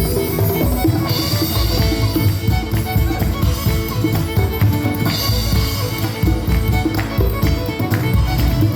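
Live band playing music with drums during a sound check.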